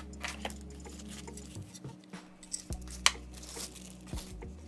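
Clear plastic bag crinkling and crackling as it is pulled off a cordless drill, with a sharp click about three seconds in.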